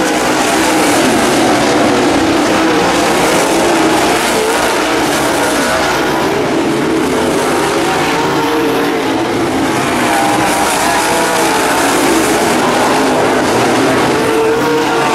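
Several dirt late model race cars' V8 engines running hard on a dirt oval: a loud, continuous engine drone whose pitch wavers as the cars power through the turns.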